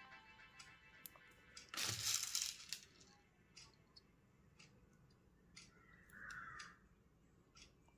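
Faint, sparse light clicks of pearl beads being picked up onto a beading needle and slid along the thread, with a short rustle about two seconds in.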